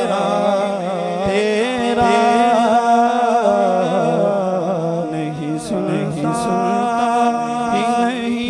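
Male naat reciter singing into a microphone, drawing out long, bending held notes over a steady low drone.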